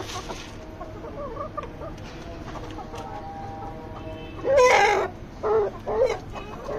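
Chickens calling: soft clucks at first, then a loud call about four and a half seconds in, followed by two shorter calls and another loud call near the end.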